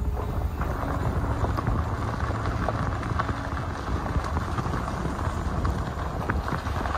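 Car driving along a road: a steady rumble of tyres and engine with a light crackle of grit under the wheels.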